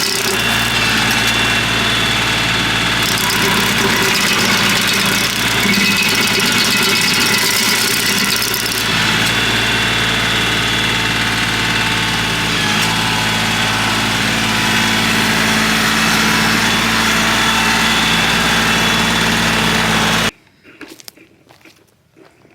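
Kioti CK3510 tractor's diesel engine running steadily under load, driving a MechMaxx PTO stump grinder as it grinds a stump down; a hiss rides on top for several seconds. The sound cuts off suddenly near the end.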